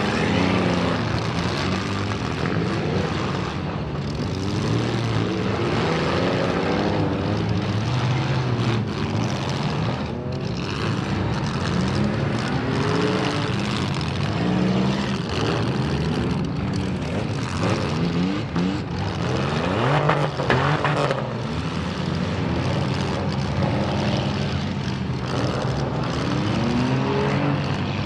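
Many front-wheel-drive demolition derby cars' engines running and revving together, their pitches rising and falling over one another. A few sharp crashes of cars hitting each other, loudest about twenty seconds in.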